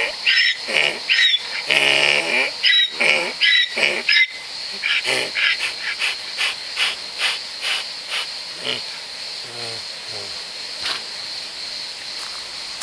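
Donkey braying: a loud run of rapid hee-haws for about the first four seconds, high wheezing in-breaths alternating with lower honking out-breaths, like a bicycle pump. It then tapers into softer, slower wheezing gasps, about two a second, that die away around ten seconds in.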